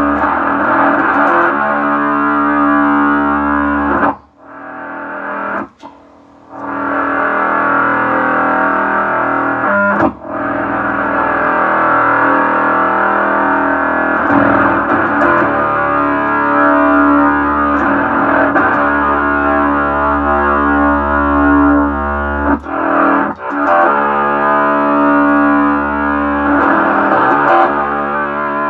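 Plucked electric strings played through an Electro-Harmonix Bass MicroSynth pedal, giving thick, sustained synthesizer-like notes; the sound drops out briefly a few seconds in, then a new note is struck. The pedal is working again after its shorted surface-mount chips were replaced.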